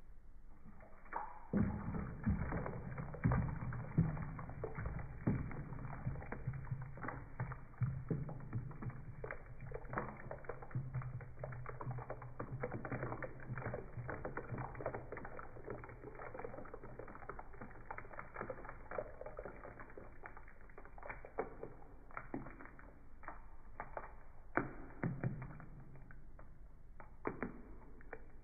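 Thick liquid pouring from a plastic jug into a stainless steel bowl, with irregular glugs and splashes throughout.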